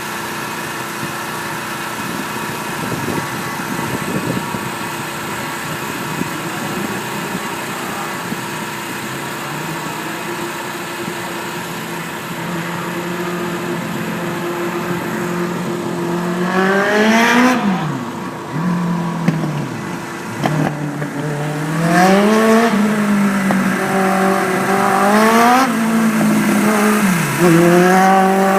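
Race car engine running steadily at first, then about halfway through revving up and dropping back again and again as the car speeds up and lifts off during practice laps.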